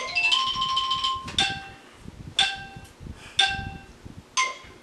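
A smartphone's speaker playing the Heads Up! game app's start cue: a short electronic chime, then four beeps a second apart, the last one higher. The beeps count down the start of a round.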